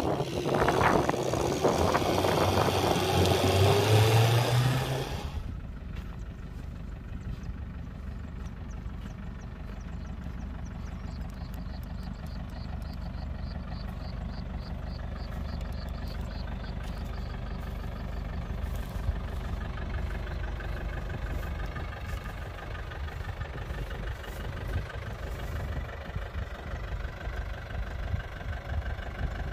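Kubota tractor diesel engine revving hard for the first five seconds or so, its pitch rising, then dropping back to a steady low running sound.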